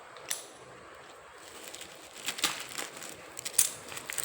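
Crinkling and rustling of packaging, with a sharp click early and a run of irregular clicks and crackles in the second half, as coins are handled and unwrapped.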